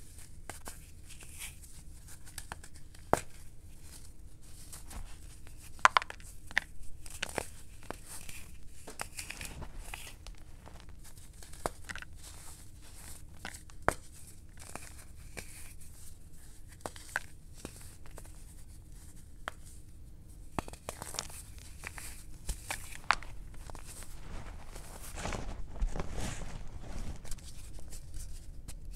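Chunks of gym chalk being crushed and crumbled by hand in a bowl of chalk powder: irregular sharp crunches and crackles with soft powdery squeezing between them. The crunching gets busier and louder near the end.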